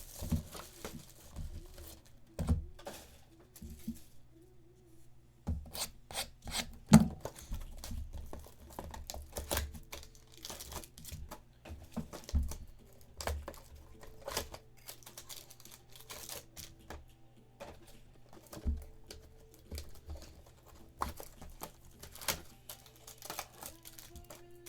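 Wrappers on a box of football trading cards being torn open and crinkled as the cards are handled, in a series of short rustles and clicks. There is one louder knock about seven seconds in.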